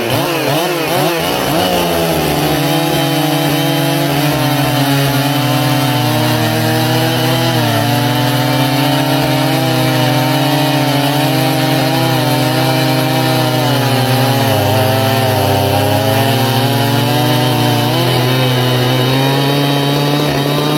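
Two-stroke chainsaws, a ported Husqvarna 365 and a Jonsered 2165 with 16-inch bars and 3/8 chain, at full throttle in a long cut through wood. The pitch climbs unsteadily over the first couple of seconds, then holds under load with small dips.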